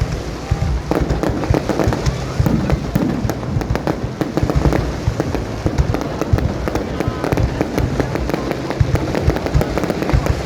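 Fireworks display: a continuous barrage of booming bursts and sharp cracks with crackling in between.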